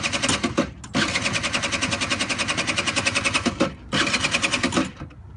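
Small engine of a fuel-economy car running with a fast, even firing beat. It drops out briefly twice and cuts off near the end.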